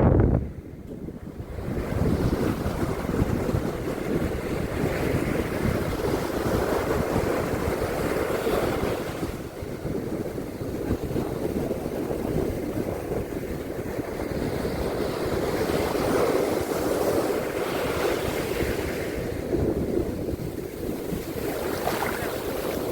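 Ocean surf washing on a beach, swelling and easing every few seconds, with wind rumbling on the microphone. It is briefly louder at the very start.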